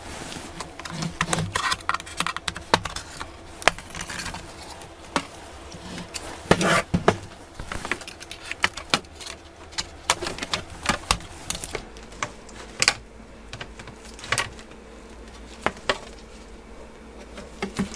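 Irregular clicks and taps of tools and plastic parts as the bottom case of a laptop is pried around its edge and handled, over a steady low hum.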